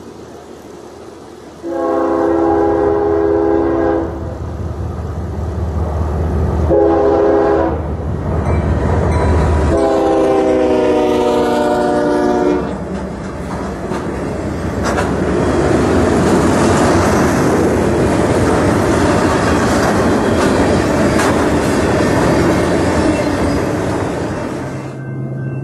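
Freight train locomotive's air horn sounding three blasts, long, short and long, the last falling in pitch as it passes, over the low drone of the engine. Then the rumble and clatter of freight cars rolling by, which drops away near the end as the train clears.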